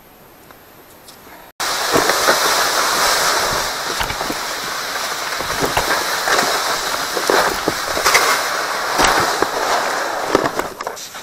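Footsteps crunching on snow-covered lake ice, starting suddenly about a second and a half in, with irregular crunches over a steady rushing hiss.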